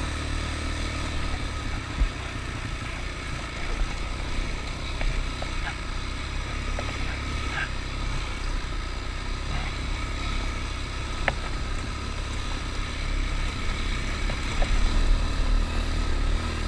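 A vehicle engine running steadily, with wind rumbling on the microphone and growing gustier near the end.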